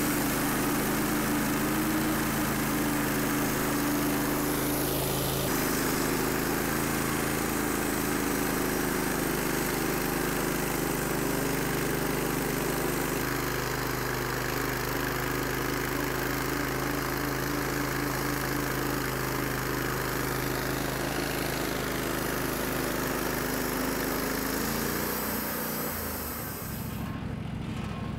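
Wood-Mizer LT15 Wide portable bandsaw mill sawing through a 28-inch cottonwood log: the engine runs steadily under load with the hiss of the blade cutting. Near the end the cutting hiss stops and the engine drops to a lower, slower running.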